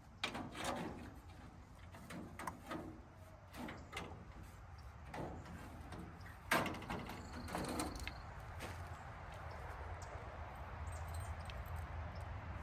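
Irregular knocks and clatter of a metal part being worked and straightened by hand, about a dozen strikes with the loudest about six and a half seconds in. A steady hiss comes up over the last few seconds.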